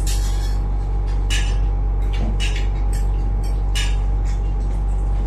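A steady low hum with a thin steady whine runs throughout, the loudest thing, while short clinks and scrapes of dishes come several times, about once a second, as food is eaten from plates.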